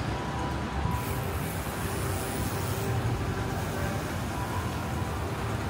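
City street traffic noise: a steady rumble of vehicles running by on the road, with the hiss of a passing vehicle swelling about a second in and fading out a couple of seconds later.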